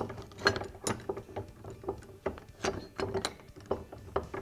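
Padded vise jaws being fitted onto a bench vise's steel jaws: a string of irregular light clicks and knocks, metal on metal.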